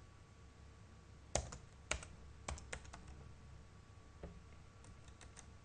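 Computer keyboard keys being struck to type a password: about ten separate keystrokes at an uneven pace, the first two loudest and the last few faint.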